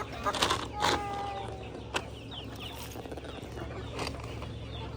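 Backyard chickens clucking with many short high peeps from chicks, and a louder drawn-out call about a second in.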